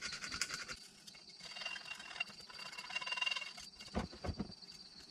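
Screwdriver tip scraping burnt-on black deposits off an aluminium motorcycle crankcase half in quick short strokes. The fast scraping stops abruptly under a second in, followed by quieter scratching and a few light knocks near the end.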